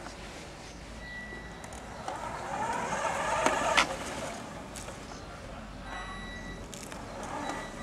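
Radio-controlled 1:7-scale Hummer H1 on an AS-01MT chassis driving over grass, its 600-size electric motor and drivetrain whirring. The whirring swells about two to four seconds in and ends in a sharp click.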